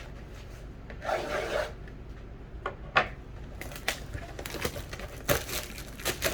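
Cardboard trading-card box being opened by hand: rubbing and scraping of cardboard with a short tearing rasp about a second in, then several sharp clicks and more scratchy handling.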